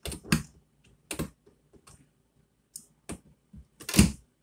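Scattered clicks and light knocks of a cabinet door's metal hinge and screw being fitted by hand, with a louder knock about four seconds in; the drill motor does not run.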